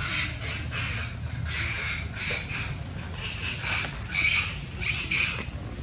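Animal calls: about a dozen short, high cries one after another, with one call about five seconds in that rises and falls in pitch.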